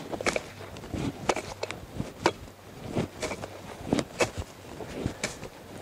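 A Pulaski chopping into the forest soil and duff, the strikes of someone digging fireline: sharp, irregular hits at roughly one or two a second.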